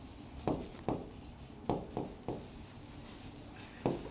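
Marker pen writing on a whiteboard: a run of short separate strokes, with one longer stroke about three seconds in.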